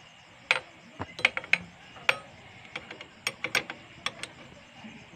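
Ratchet wrench clicking in short, irregular strokes, with quick clusters of sharp clicks, as it works the mounting bolt of a motorcycle exhaust muffler.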